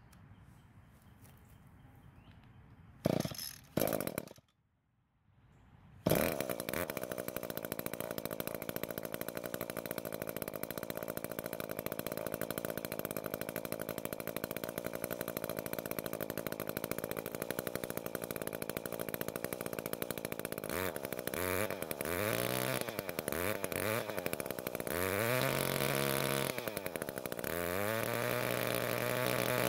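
Echo stick edger's small two-stroke engine cold-started on choke, catching about six seconds in and then running steadily while it warms up, testing whether the readjusted carburetor L and H screws let it start and run from cold. Two short bursts of noise come just before it catches, and in the last third its speed dips and rises several times.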